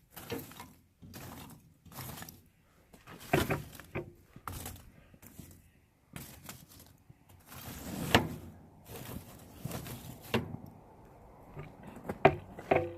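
Scattered, irregular knocks and clanks of metal from blacksmith work on a rebar tongs blank, the loudest about three seconds in, about eight seconds in and near the end.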